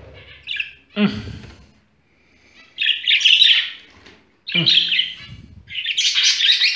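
Budgerigars chirping and chattering in short, quick bursts that come more thickly toward the end.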